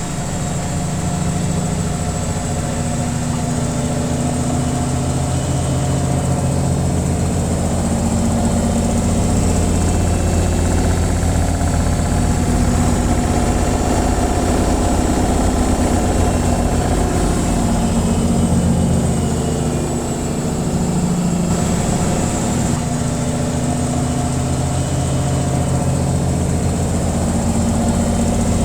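Washing machine on its spin cycle: a steady low motor hum with the whirring of the spinning drum, dipping slightly in loudness about two-thirds of the way through.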